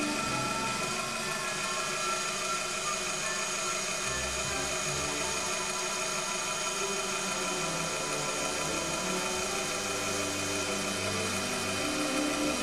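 Proxxon PD 250/e mini lathe running with a steady motor whine as a boring bar cuts inside the bore of a small steel part, under orchestral music.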